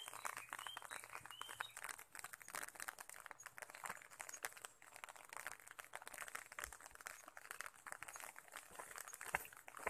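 Light rain pattering on an umbrella overhead, a dense run of small ticks, with a bird chirping a few times in the first second or so and one sharper tap near the end.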